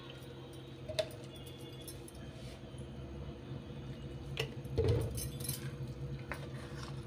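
Metal spoon stirring a thick flour-and-vegetable batter in a stainless steel bowl, clinking and scraping against the bowl's side. A few sharp clinks stand out, the loudest about five seconds in, over a steady low hum.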